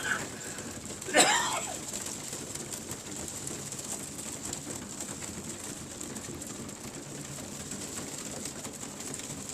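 A loft full of young racing pigeons cooing steadily while they feed, with one brief loud sound about a second in.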